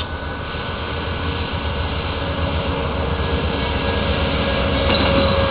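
Amtrak GE P42DC diesel locomotive approaching and passing, its engine running and growing steadily louder.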